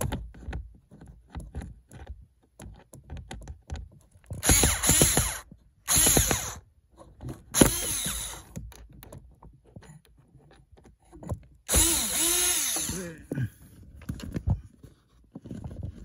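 Cordless drill-driver run in four short bursts, its motor whine rising and falling, backing out the screws that hold a car's cabin air filter cover.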